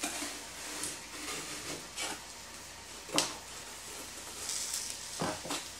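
Metal spatulas scraping and tapping against the stone and rim of an electric countertop pizza oven as a cooked pizza is worked loose and lifted out. There is one sharp click about three seconds in and a few lighter knocks near the end.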